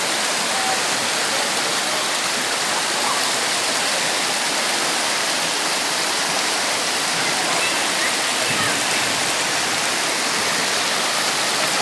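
Steady, even rush of water from a heavy tropical downpour.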